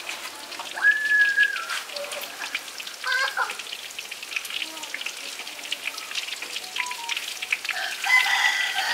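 Steady crackling of food frying in hot oil, with a short high-pitched call about a second in and another, louder call near the end.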